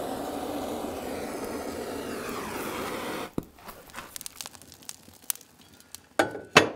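Handheld propane torch hissing steadily as it lights kindling and split wood in the firebox, cutting off about three seconds in. Then the young fire crackles and pops, with two sharp metallic knocks near the end.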